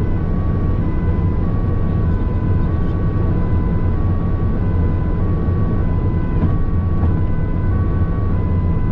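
Two-tone emergency siren switching back and forth between two pitches, each held about half a second, heard inside the cabin of the responding van over the steady low rumble of its engine and tyres at motorway speed.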